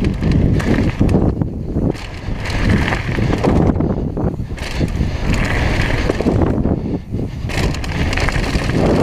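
Mountain bike riding fast down a gravel downhill track: heavy wind buffeting on the camera's microphone, tyres crunching and rolling over gravel, and irregular rattles and knocks from the bike over the bumps.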